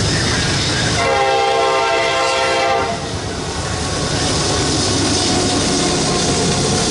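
Raised-letter Nathan K5LA five-chime air horn on a Norfolk Southern diesel locomotive sounding one blast of about two seconds, starting about a second in. The locomotive's engine and wheels rumble on the rails as it passes close by, and this continues after the horn stops.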